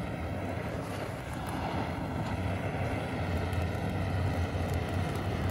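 Handheld butane torch lighter blasting a steady jet of flame into a stack of split kindling to light a campfire, a continuous rushing roar.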